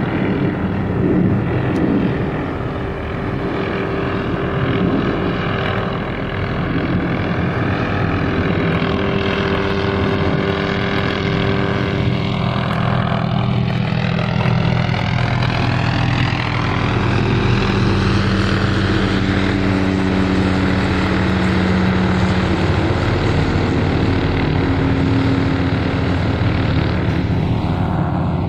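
MD 500-series police helicopter flying low overhead: steady rotor beat and turbine drone. Its tones slide up and down in pitch, with a sweeping, phasing quality as it moves across the sky.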